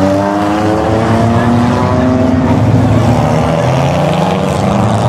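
Dirt-track stock car engines running loud, one climbing steadily in pitch as it accelerates over the first couple of seconds, then several engines droning together.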